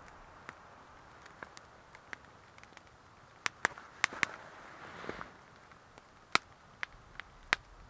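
Small campfire crackling, with sharp, irregular pops; a cluster of louder pops comes about halfway through and a few more near the end.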